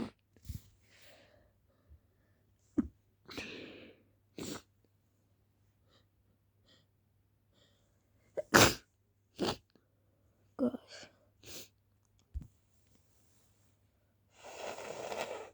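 People sneezing over and over: a string of short, sharp sneezes separated by pauses of a second or more, the loudest about eight and a half seconds in. A longer breathy stretch comes near the end.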